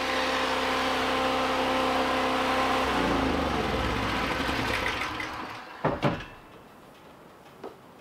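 A power saw's motor running steadily after a cut in wood. It changes about three seconds in and winds down to a stop, followed by two sharp knocks.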